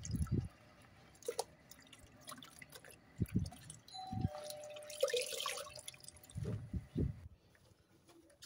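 Water dripping and splashing into a plastic bucket as a wet sponge cloth is squeezed and wrung out by rubber-gloved hands, with a few soft splashes.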